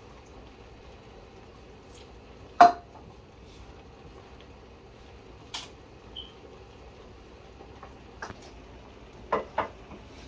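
Kitchen clatter: a few separate knocks and clinks of pots and dishes being handled. The loudest is a clink about two and a half seconds in that rings briefly, and two quick knocks come close together near the end.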